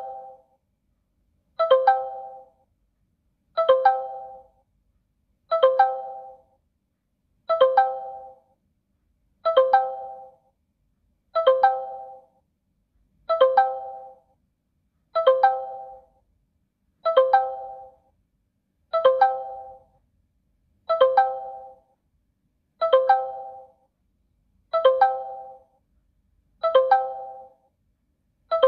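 A messaging app's incoming-call ringtone on a smartphone: a short two-strike, doorbell-like chime repeating evenly about every two seconds.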